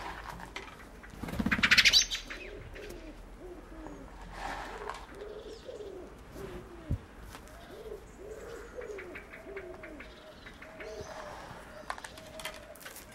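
A flock of common pheasants feeding: a loud, rapidly pulsed flutter of wings about a second in, then a long string of short, soft, low calls, some coming several a second.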